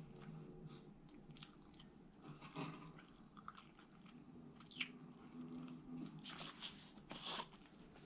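A person chewing and biting breakfast food close to the microphone, quiet mouth sounds with a few sharp crunchy clicks in the second half.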